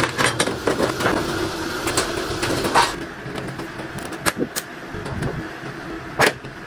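Sheet metal being cut by hand: a lever-arm bench shear cutting stainless steel sheet, then hand snips clipping small pieces, giving a string of sharp metallic clicks and snaps, two of them loud and briefly ringing, over a steady workshop hum.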